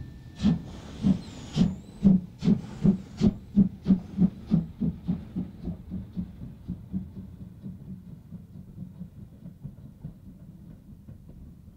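DB class 065 steam tank locomotive pulling away: sharp exhaust chuffs, slow at first and quickening to about three a second, growing fainter as it draws away. A whistle note cuts off just under a second in.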